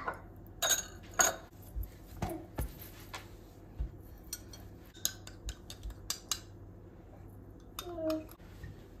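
Metal teaspoon clinking against a small glass bowl while a liquid dressing is stirred: a string of sharp, irregular clinks.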